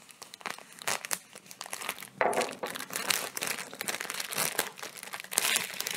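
Clear plastic film around a printed instruction booklet crinkling irregularly as it is cut open with a knife and peeled off, louder from about two seconds in.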